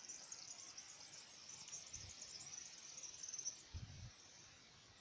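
Crickets chirring in a faint, continuous high trill, with a couple of low, dull thumps about four seconds in.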